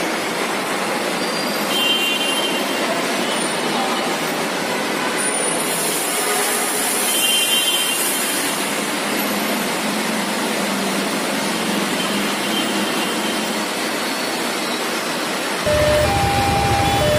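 Road-traffic ambience: a steady wash of vehicle noise. Near the end, a two-tone alarm of a railway level crossing begins, alternating between two notes.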